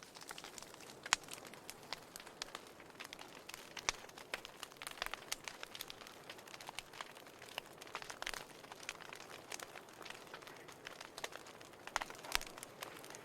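Fireplace fire crackling: irregular sharp pops and snaps over a soft steady hiss, with one strong pop about a second in and a cluster of louder pops near the end.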